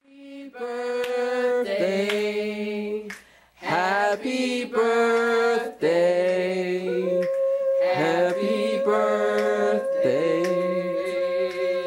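Several voices singing together in long held notes that step from pitch to pitch, with a brief break a little over three seconds in and another near the middle.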